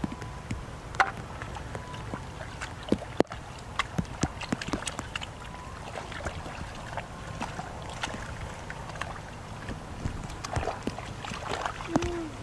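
Hands sloshing and squelching through shallow muddy water, with many scattered small splashes and wet slaps.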